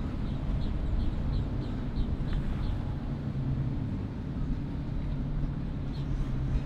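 Boat engines running with a steady low hum. In the first few seconds a bird chirps rapidly, about three high chirps a second.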